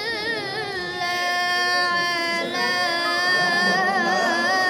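A high voice chanting a long, held melodic phrase with wavering, ornamented pitch, in the melodic style of Quran recitation (tilawah).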